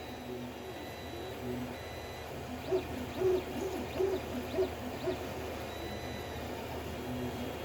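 Creality CR-10 3D printer printing: its stepper motors whine in short pitched tones that jump from note to note as the head moves, over a steady fan hum.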